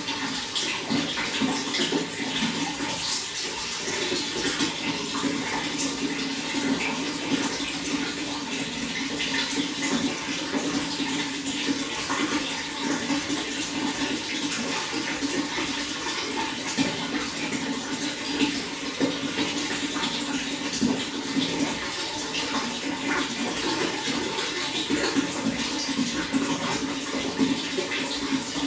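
Running water flowing and splashing steadily, with a constant rush and many small irregular splashes.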